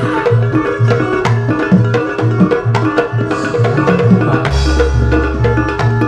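Traditional Javanese jaranan campursari ensemble music: kendang hand drums beating quick patterns over a low bass pulse about twice a second, with a violin melody. A deep sustained low note comes in about four and a half seconds in.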